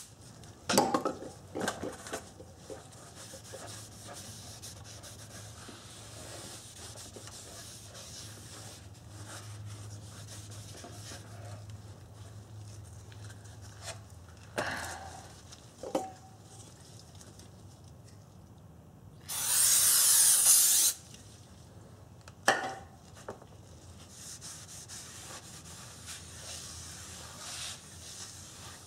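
Brake-cleaner aerosol sprayed onto a new brake rotor and hub assembly, with a shop rag rubbing over the rotor surface. One loud spray hiss of about a second and a half comes past the middle, and a few light knocks sound as the rotor is turned over.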